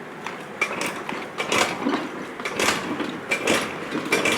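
A Honda Lead scooter's two-stroke engine being cranked over repeatedly, with a mechanical clatter about once a second. It never catches or fires: a no-start fault.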